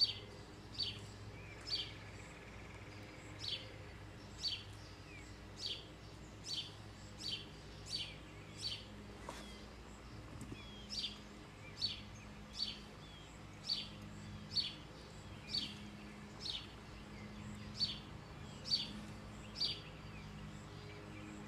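A bird repeating a short, sharp, high chirp about once a second, with a brief pause midway and stopping near the end, over a faint low steady hum.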